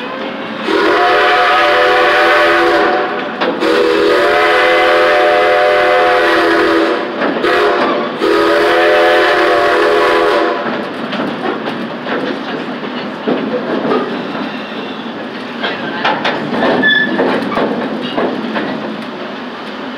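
Narrow-gauge steam locomotive's whistle blown in three long blasts, each a few seconds long. After the last one the train rolls on, with the wheels clicking and knocking over the rail joints.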